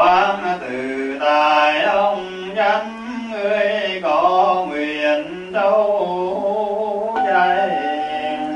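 A man's voice singing a chant-like melody, each note held about half a second to a second, with slides between them. Near the end it settles on one long steady note that begins to fade.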